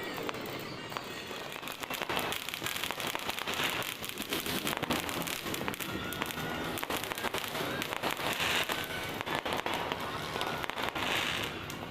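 Fireworks and firecrackers going off in many places at once: a dense, irregular crackle of pops at a fairly even level.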